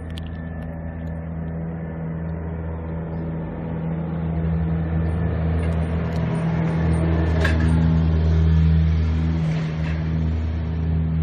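Road traffic on a busy road: a motor vehicle's engine hum, low and steady, growing louder to a peak about eight or nine seconds in and then easing as traffic passes.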